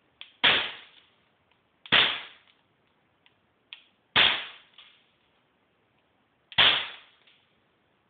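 Crosman P10 CO2 BB pistol firing four shots, a couple of seconds apart. Each is a sharp pop that dies away quickly, with a faint click just before it.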